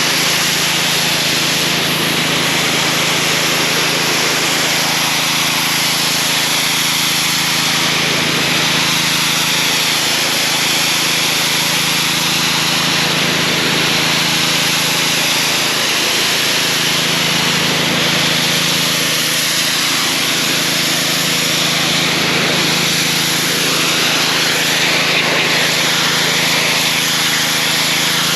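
Gas pressure washer running steadily, its engine humming under the hiss of a yellow-tip nozzle spraying water against a retaining wall to lift dirt and algae.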